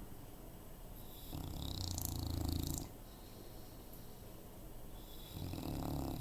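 Bulldog snoring in its sleep: two snores, a longer, louder one about a second in and a shorter one near the end.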